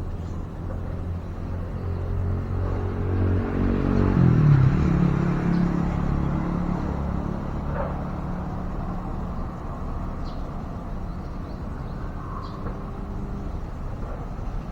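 A motor vehicle's engine going by, loudest about four seconds in, where its pitch drops, then fading slowly.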